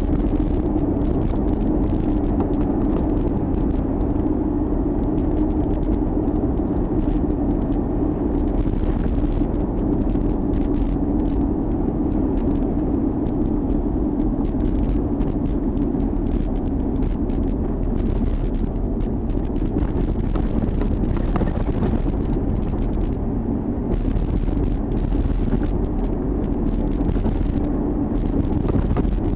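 Chevrolet Tahoe driving: steady engine and road noise with a constant low hum and scattered light clicks.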